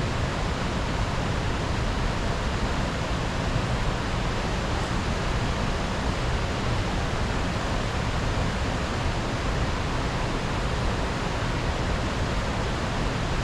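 Steady rushing of river water, an even hiss with no breaks or changes.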